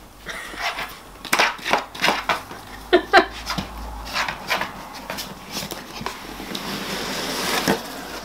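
Cardboard box being pawed and nosed by a miniature dachshund: a run of short scratches and knocks on the cardboard, with two short squeaky sounds about three seconds in. Near the end the box lid scrapes open with a rising cardboard rustle.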